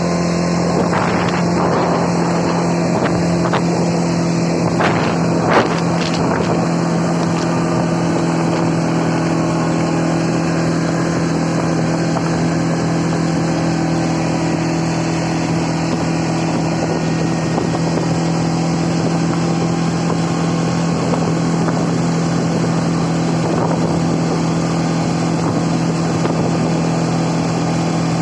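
CFMoto 520L ATV's single-cylinder engine running at a steady, even speed under way. A few sharp knocks come in the first six seconds, the loudest about five and a half seconds in.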